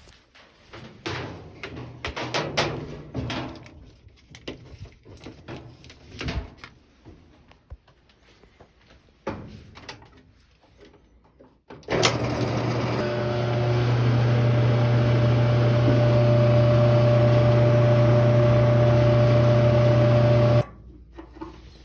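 Clicks and handling noises of wiring work. Then, about twelve seconds in, a gas dryer with its door switch bypassed starts up: its drum motor runs with a steady, loud hum for about nine seconds and stops abruptly near the end.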